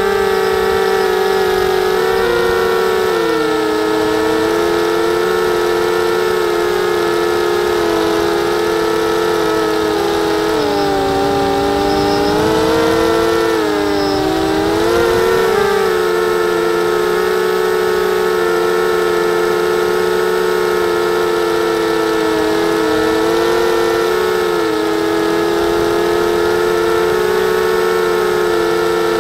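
250-size FPV quadcopter's brushless motors and propellers whining steadily as it flies low, heard from the onboard camera; the pitch dips and rises with throttle changes around the middle.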